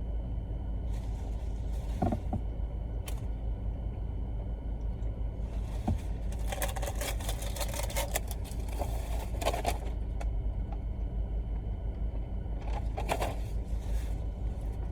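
Steady low rumble of a car running, with short crackly bursts of close-up eating noises, clustered in the middle and again near the end.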